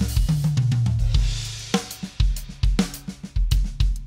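Drum kit playing a groove with kick, snare, hi-hat and cymbals, with a cymbal wash about a second in, over low held notes.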